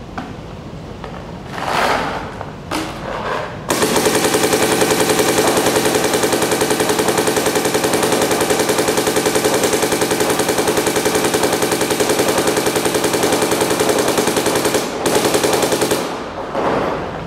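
MacDev Clone 5 paintball marker firing on compressed air in a rapid, unbroken stream of shots for about eleven seconds, then a brief pause and a short final burst. A few short noises come before the shooting starts.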